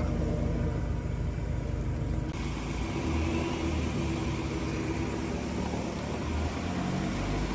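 A 4x4 pickup's engine running steadily while driving the trail. The sound changes abruptly about two seconds in.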